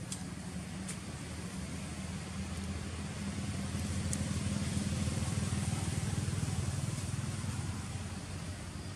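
Low engine rumble of a passing motor vehicle, growing louder through the middle and fading again near the end.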